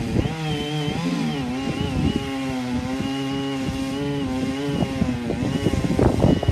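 Two-stroke chainsaw running at high revs, its pitch holding mostly steady with slight dips, and a few knocks near the end.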